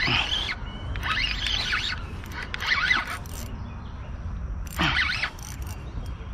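Spinning reel's drag buzzing in short repeated bursts as a hooked catfish pulls line off during the fight.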